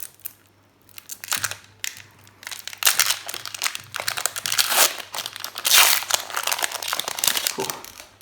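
Foil wrapper of a Magic: The Gathering Commander Legends draft booster pack crinkling and tearing as it is opened, in irregular bursts, loudest about three seconds and six seconds in.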